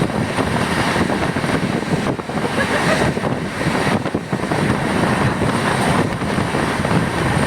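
Steady running noise of a moving train heard from on board: wheels on the rails and rushing air, an even noise with no sharp knocks.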